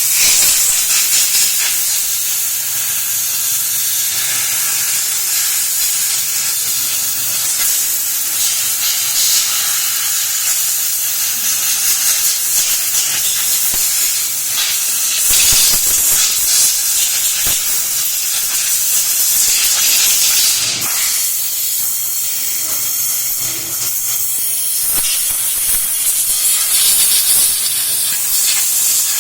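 A loud, steady hissing jet, such as a compressed-air blow gun or pressure spray used to clean the brake and wheel hub of an electric scooter. There are a couple of short knocks, one about 15 seconds in and one about 21 seconds in, and the hiss eases a little after that.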